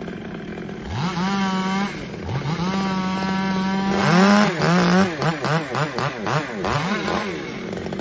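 Two-stroke chainsaw revved up and held at full throttle for about a second, then again for about two seconds. From about four seconds in, the revs swing rapidly up and down, about three times a second, as the saw cuts, before dropping back near the end.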